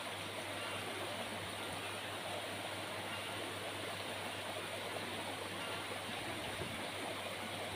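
Shallow rocky stream running fast over rocks in small rapids: a steady, even rushing of water.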